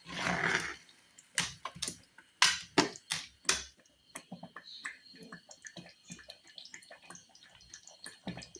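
Kitchen cooking clatter: a short rushing noise, then several sharp knocks and clinks, like utensils against a pot. From about four seconds in it turns into a run of light ticks and clicks.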